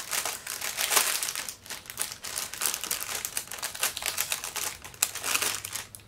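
Clear plastic bag crinkling in irregular bursts as it is handled and folded in the hands, with the small packets of diamond-painting drills inside.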